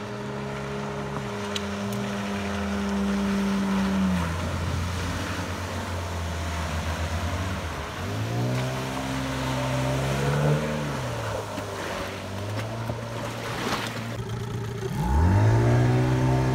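Outboard motors pushing inflatable boats at speed, the nearest an Apache 9.9 outboard on a yellow inflatable. Their pitch falls and rises as the boats turn and throttle back, then climbs sharply about fifteen seconds in as the throttle is opened.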